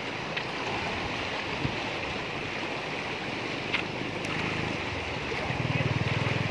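Fast-flowing floodwater rushing steadily past the bank, with a few faint knocks. A low, pulsing drone comes in about five and a half seconds in and is the loudest thing near the end.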